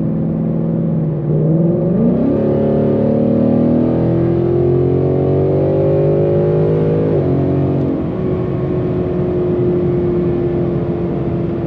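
Ford Mustang's engine and exhaust under full-throttle acceleration, heard from inside the cabin. The revs start climbing about a second in and rise steadily, drop suddenly at an upshift about seven seconds in, then climb again as the 10-speed automatic holds the RPMs high.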